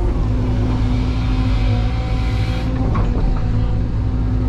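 CAT 320 GC excavator's diesel engine and hydraulics running steadily under load while digging: a low engine drone with steady whining tones over it.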